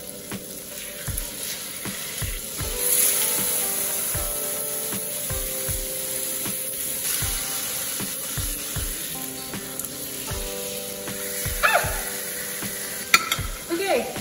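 Steaks sizzling in hot oil in a frying pan as they are laid in with tongs; the sizzle swells about three seconds in and then holds steady. A few sharp clicks near the end.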